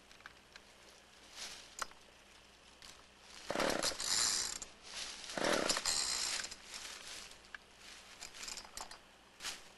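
Gas chainsaw being pull-started: two hard pulls on the starter cord, about three and a half and five and a half seconds in, crank the engine, which does not catch and run. Fainter handling sounds come between and after the pulls.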